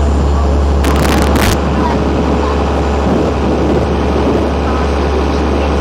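Tour boat's engine running with a steady low drone under wind and water noise, with a brief burst of hiss about a second in.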